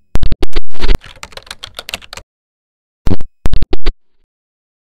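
Computer-keyboard typing sound effect: a fast run of loud keystroke clicks for about two seconds, a pause of about a second, then a handful more keystrokes.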